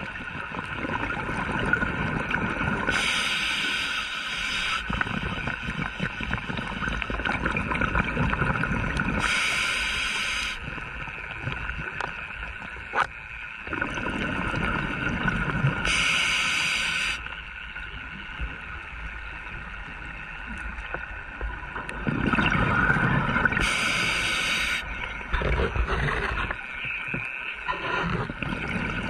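Scuba diver's regulator breathing, heard underwater: a sharp hiss with each inhalation, four times about every six to seven seconds, and between them the low rumbling burble of exhaled bubbles, over a faint steady hum.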